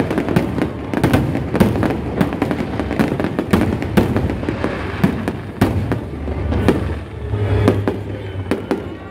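Aerial fireworks going off in quick succession: many booms and crackles overlapping into a continuous rumble.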